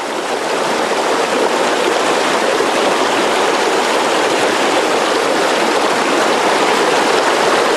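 River water rushing over rocks and a small cascade: a loud, steady rush.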